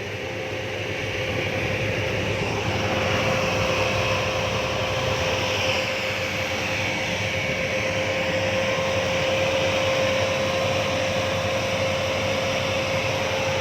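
Engine of a paddy-field machine running steadily under load, a continuous drone with a steady whine over it, growing a little louder over the first couple of seconds.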